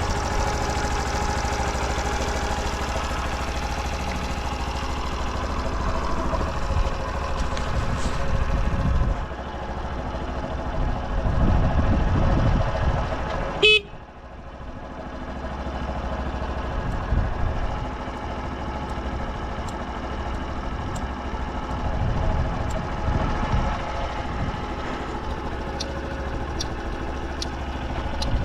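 Honda Super Cub 50 Pro's 49 cc four-stroke single running steadily, with no abnormal noise, louder for a few seconds near the middle. About halfway through its horn gives one short beep.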